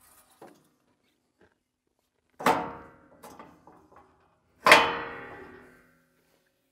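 Steel adjustable side panels of an Arrowquip cattle alley being moved and set: two loud metal clangs about two seconds apart, each ringing out, with lighter knocks and rattles between them.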